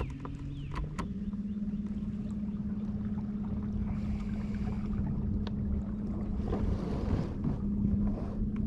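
A kayak's electric trolling motor running at a steady speed, its even hum starting about a second in, over water and wind noise.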